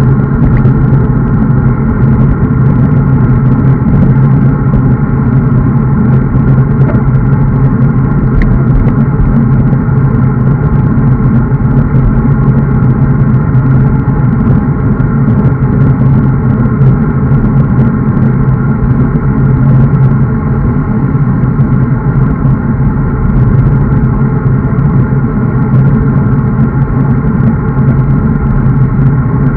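Steady riding noise on a bicycle-mounted camera moving at speed on asphalt: wind rushing over the microphone and tyre noise, with a constant droning hum.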